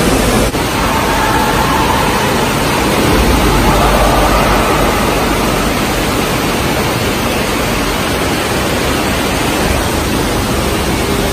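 Loud, steady rushing noise with no clear pattern, such as wind buffeting the microphone or rushing water.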